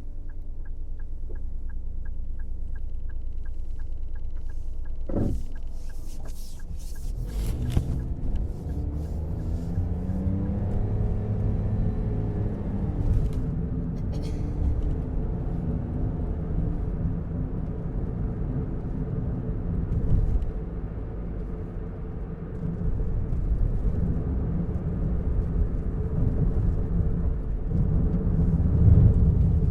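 Car engine idling with a quick, regular ticking over it. After a few sharp clicks the car pulls away, the engine rising in pitch as it picks up speed, then settles into a steady low driving rumble.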